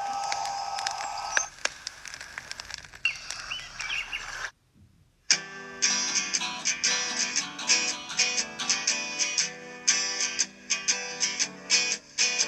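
Background music: after a steady tone with a few clicks and some faint chirps, there is a brief silence about four and a half seconds in, and then guitar music with quickly picked notes begins.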